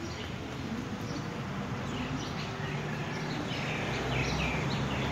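Birds chirping: a run of short, quick, falling chirps in the second half, over a steady low rumble.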